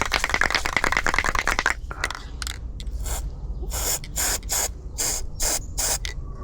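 A ratchet wrench clicks rapidly for about the first two seconds, then an aerosol can sprays in about six short hissing bursts.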